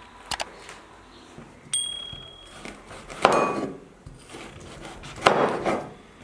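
Kitchen utensils clattering: a sharp clink with a short high ring, then two louder clattering knocks a couple of seconds apart.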